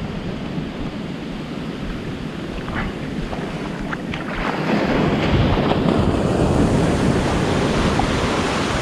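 Small waves breaking and washing up the sand, with wind buffeting the microphone; the wash gets louder about halfway through as the water's edge is reached.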